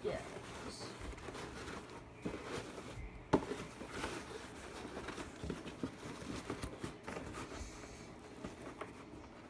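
Molded paper-pulp insert being worked down into a soft fabric bag: rustling and scraping of pulp against fabric, with a sharp knock about three seconds in.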